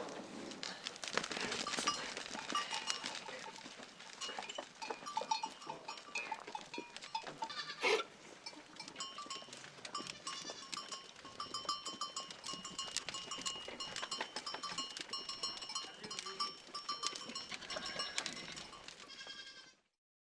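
Goats bleating among many small clinks and ringing tones like livestock bells, with two loud bleats, one at the start and one about 8 s in. The recording cuts off just before the end.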